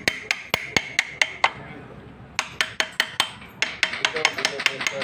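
Quick, sharp metallic taps on Yanmar harvester gearbox parts during assembly: three runs of about four to six taps a second with short pauses between them.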